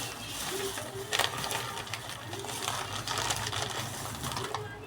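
Food sizzling and crackling in hot oil in a cooking pot, with a short clatter about a second in.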